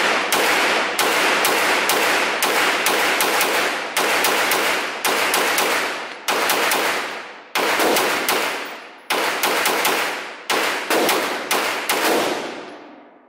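CZ Scorpion pistol-calibre carbine fired as single shots in quick succession, roughly two a second with a few short pauses between strings. Each report rings out with a long echo off the walls of the indoor range.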